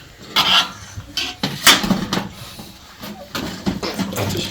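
Irregular knocks and clatters, sharpest about half a second in and again near the middle.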